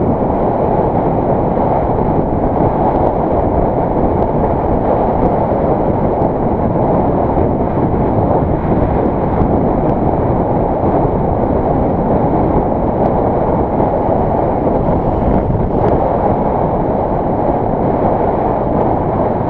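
Heavy, steady wind rush on the microphone of a camera riding on a moving motorbike, with road noise mixed in.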